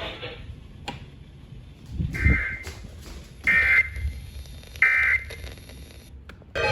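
Emergency Alert System header: three short, shrill bursts of digital data tones about a second and a half apart, over a low radio rumble. These bursts mark the start of a new encoded alert.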